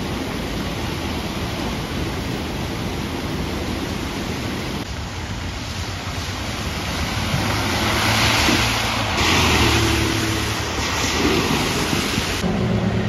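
Heavy rain falling with cars driving through a flooded street, engines humming and tyres swishing through standing water. The sound changes abruptly a few times between shots and is loudest from about eight to twelve seconds in.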